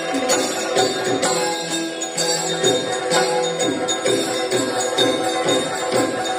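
Yakshagana ensemble music: a steady drone under a regular beat of barrel drum strokes, with the jingling of the dancers' ankle bells as they dance.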